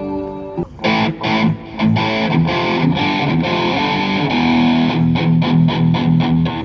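Music led by strummed electric guitar with some distortion: held chords give way under a second in to a rhythmic run of choppy strummed chords, which stops abruptly at the end.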